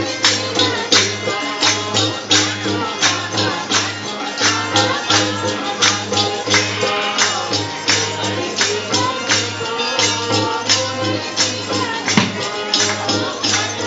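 Devotional bhajan played live on harmonium and tabla, the harmonium holding steady chords under a steady beat of about two claps or percussion strokes a second, with voices singing along.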